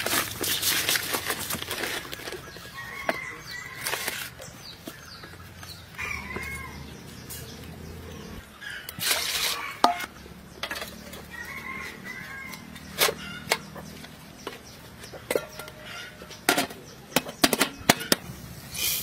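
Wet rubbing and handling of a large fish in a plastic basin, then a series of sharp metal clanks as an aluminium pot and steamer lid are handled and set in place. Birds chirp now and then in the background.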